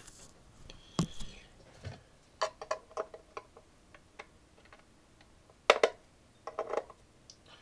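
Scattered light clicks and taps of needle-nose pliers prying a tab and working a hard drive loose from the carrier tray of a Maxtor OneTouch II enclosure, with a sharper knock about a second in and a cluster of ringing clicks near the end.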